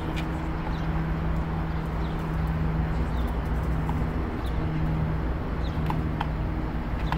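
Outdoor city ambience: a steady low mechanical hum over constant traffic noise, with scattered faint short bird chirps.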